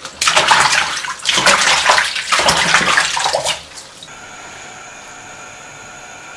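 Green onions swished and rubbed by hand in a basin of water, splashing in three rounds for the first few seconds. After a cut about four seconds in, a steady faint hiss with a thin high whine follows, from a wok of oil heating on the cooktop.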